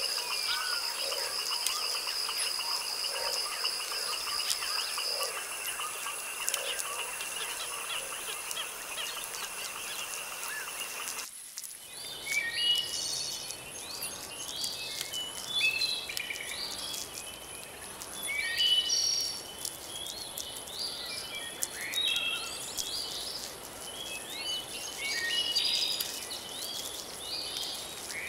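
Night chorus of insects trilling steadily and frogs calling, which cuts off abruptly about eleven seconds in and gives way to many birds singing in quick chirps and whistles over a steady high insect buzz.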